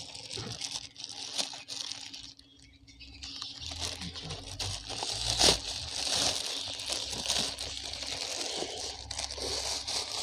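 Clear plastic fish-shipping bags crinkling as the knotted outer bag is worked open and the small bagged fish inside are handled, with one sharp snap about five and a half seconds in.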